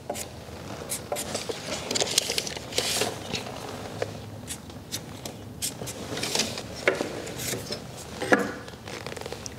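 Scattered light clicks, taps and short scrapes of hand tools against a wooden sill plate, from a tape measure and a speed square handled while the stud layout is marked out.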